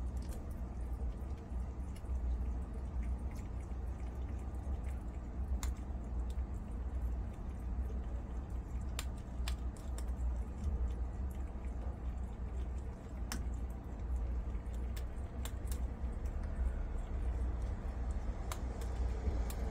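Prairie dogs chewing slices of dried zucchini, with an irregular sharp crunch now and then over a steady low hum.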